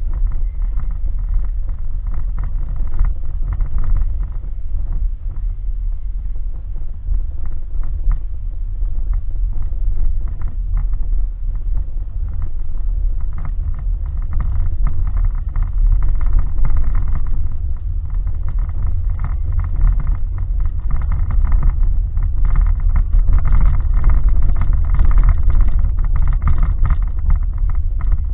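Car driving on a rough dirt road, heard from inside the cabin through a dashboard camera: a steady low rumble of engine and tyres with scattered knocks from bumps, growing a little louder near the end.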